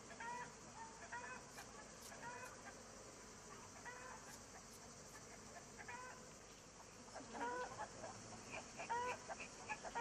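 Chickens clucking, short repeated calls that come more often in the last few seconds, over a steady high hiss.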